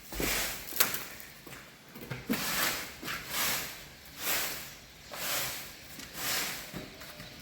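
A broom sweeping the floor in steady strokes, about one swish a second.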